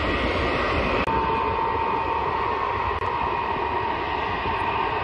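Ilyushin Il-76 transport's four turbofan engines running on the runway: a steady rushing noise with a whine that sets in about a second in and holds.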